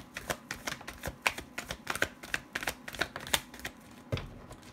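A deck of divination cards being shuffled by hand: a quick, uneven run of sharp card clicks and flicks, about five a second.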